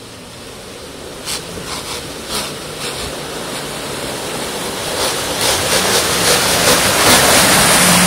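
Off-road 4x4 driving through deep mud and water, its engine running under load and its wheels churning and splashing, growing louder as it comes close. A few sharp knocks sound in the first few seconds.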